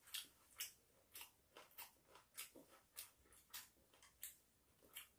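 Faint chewing with soft crunchy clicks, irregular, roughly one or two a second.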